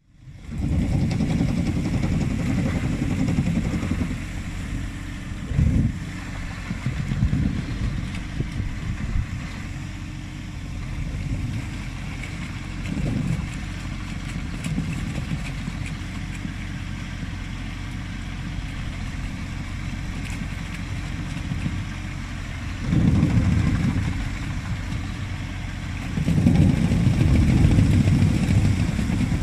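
Truxor amphibious reed cutter's engine running as its tracks paddle it through the canal water with a low, steady drone. The drone swells a few times and is loudest near the end.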